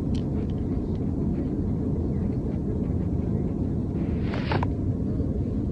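Steady low rumble with a brief burst of higher-pitched noise about four seconds in.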